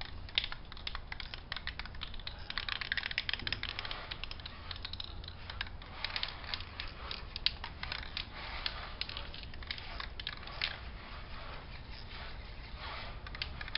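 Rust-Oleum aerosol spray paint can being shaken, its mixing ball rattling inside in a fast, continuous clatter of clicks.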